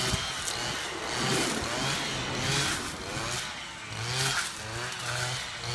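Stihl brushcutter engine running, its revs rising and falling again and again as the throttle is worked while cutting brush.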